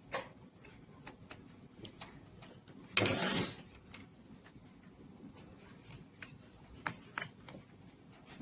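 Small clicks and taps of plastic smoke-alarm parts and their wiring being handled, with a short scraping rustle about three seconds in.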